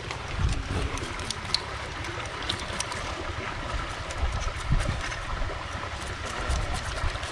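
Steady rush of stream water under a low, uneven rumble, with a few faint scattered clicks and taps.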